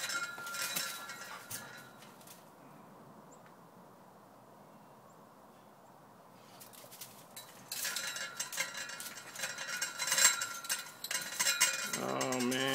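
Chain-link gate rattling and clinking as a dog climbs it, briefly at the start and again for several seconds from about eight seconds in. Near the end comes a short, steady, low hum-like voice.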